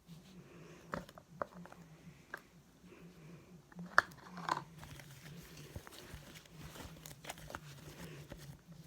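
Hands working slime, making scattered sharp pops and clicks. The loudest pop comes about four seconds in.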